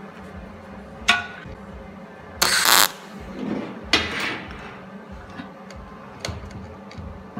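MIG welder striking a short tack weld on a steel hinge: a half-second burst of arc crackle about two and a half seconds in, the loudest sound. Metal knocks before and after it, the first ringing briefly, over a steady low hum.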